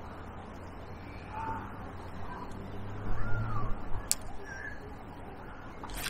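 Birds giving several short calls, one of them a rising-and-falling call about three seconds in. Over them a gust of wind rumbles on the microphone for about a second, and there is a sharp click near the end.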